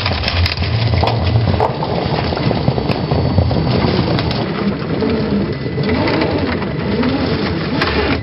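The electric motor and gear drive of a 1/10-scale RC crawler running as it climbs a rock face, the pitch repeatedly rising and falling, with small ticks and scrapes from the tyres on the rock.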